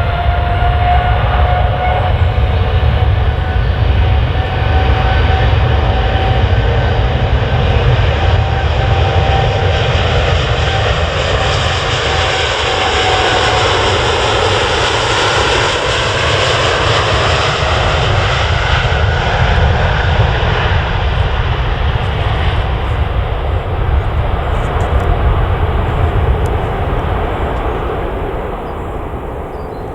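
Jet airliner engines running loud and close, a deep rumble under a whine that climbs in pitch at first, then holds. Midway the tone sweeps and swirls as the aircraft passes, and it eases off near the end.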